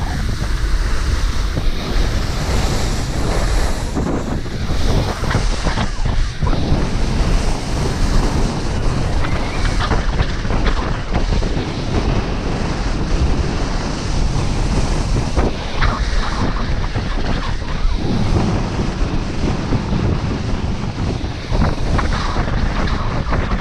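Wind rushing over a camera microphone while skiing downhill fast, mixed with the hiss and scrape of skis carving turns on snow, swelling and easing with each turn.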